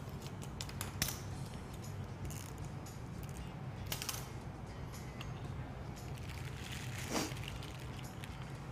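Scissors snipping the tip off a plastic piping bag: a few sharp clicks a few seconds apart, over a steady low hum.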